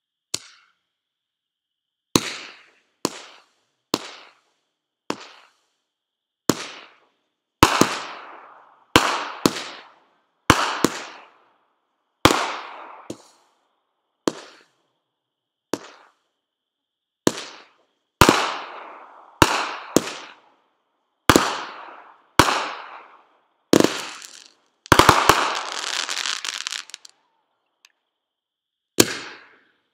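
Fireworks going off: about twenty sharp bangs at uneven intervals, each trailing away over a second or so. About 25 seconds in, several bangs come in quick succession and run into a couple of seconds of dense crackling.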